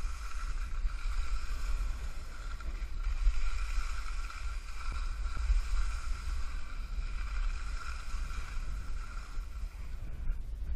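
Wind buffeting the camera microphone with a gusty rumble during a ski descent, over a steady hiss of skis running on snow; the hiss fades near the end.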